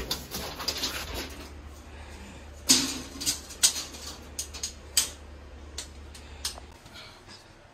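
A string of sharp clicks and knocks, the loudest about three seconds in, from a steel tape measure being handled against a wall. A low steady hum runs underneath and stops near the end.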